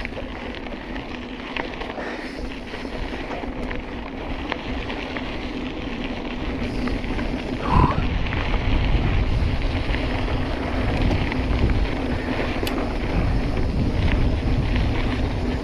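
Mountain bike rolling fast over a dirt trail: tyre noise, small rattles from the bike, and wind buffeting the microphone. A sharp jolt comes about eight seconds in, after which the wind rumble grows louder as the bike speeds up.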